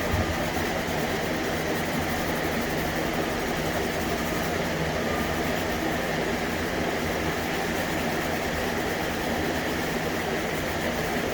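Steady machine hum with an even hiss, unchanging throughout, with no distinct strokes or knocks.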